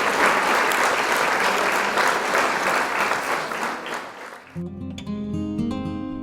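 A loud, steady hiss for about four and a half seconds, like spraying air or water, that cuts off suddenly. Strummed acoustic guitar music takes over.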